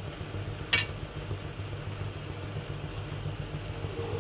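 A metal slotted spoon clinks sharply once against the pan while stirring cooked rice, about a second in. A steady low hum runs underneath.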